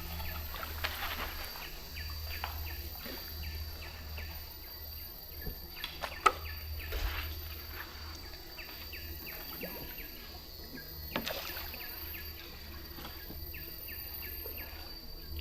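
Forest river ambience: a steady high insect drone with scattered bird chirps over a low steady hum, broken by a few sharp knocks, the loudest about six seconds in.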